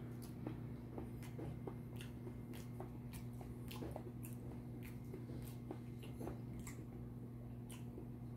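Close-up chewing and wet mouth sounds: irregular smacks and clicks several times a second. A steady low electrical hum runs underneath.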